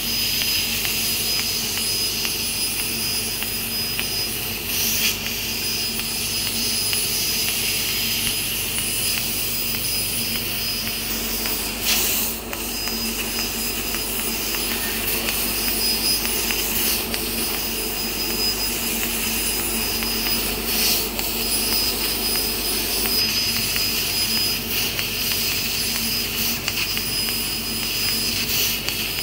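1500 W fiber laser cutting machine running as its cutting head cuts a gold titanium-plated stainless steel sheet: a steady hiss with a thin high whine and a low hum, broken by a few brief sharp cracks.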